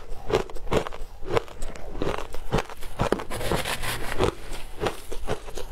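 Close-miked crunching of shaved ice being chewed, a steady run of crisp crunches at about three a second.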